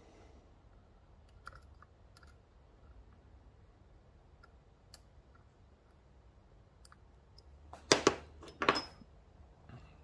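Faint, sparse metallic clicks of a dimple pick and tension wrench working the pins of a Mul-T-Lock Classic pin-in-pin cylinder, then two louder clacks less than a second apart near the end as the pick is pulled out of the keyway and swapped for another pick.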